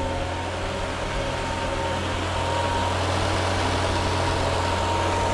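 Triumph Acclaim's Honda-derived four-cylinder engine idling steadily on part choke, freshly started and still cold, warming up. A thin steady whine sits over the even engine hum.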